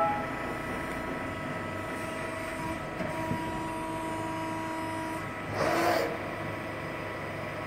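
Hydraulic CNC press brake running with a steady machine hum made of several tones. A higher whine joins for about two seconds in the middle, and a brief rush of noise comes about six seconds in.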